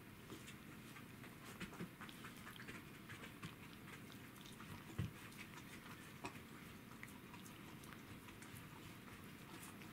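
A cat chewing and crunching a piece of deer bone: faint, irregular small crunching clicks, with one louder snap about halfway through.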